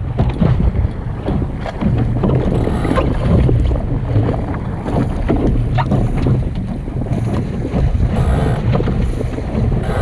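Wind buffeting the microphone on a Sunfish sailboat under way, over the steady rush and slap of water along the hull, with a few brief knocks.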